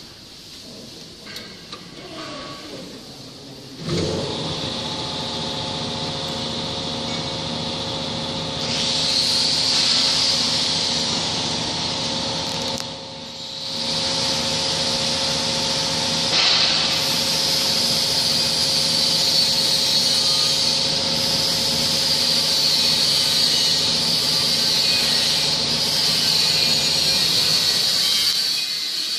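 A few small metal clicks, then about four seconds in a machine motor starts and runs steadily with a hum and a high hiss. The sound dips briefly about halfway through.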